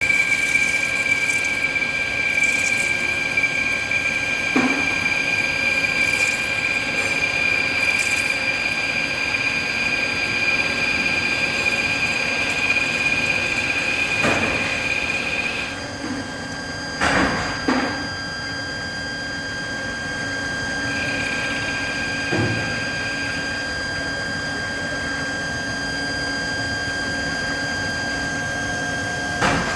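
Lathe running at high speed with a steady high whine over a hiss of machine noise. The whine cuts off about halfway through, and a few short knocks follow soon after.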